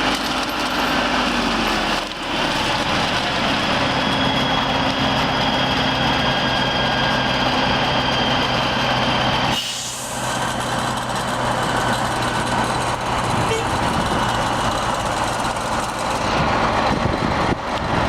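KhTZ-150K-09 tractor running with its milling mulcher working, a steady heavy engine-and-machine noise. The sound drops briefly about two seconds in and again near the middle.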